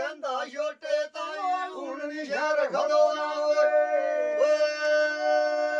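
Men singing a lambi bhaakh, a long-drawn unaccompanied Rajasthani folk song: ornamented, wavering phrases for the first few seconds, then one note held long from about three seconds in.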